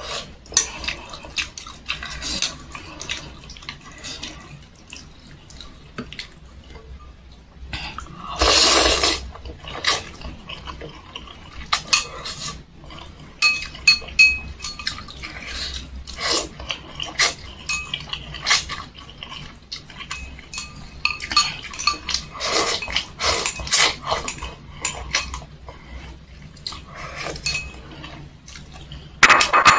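A person eating chicken noodles with meatballs: irregular chewing and slurping, with chopsticks clicking and clinking against a stainless-steel bowl now and then. The loudest burst comes about nine seconds in.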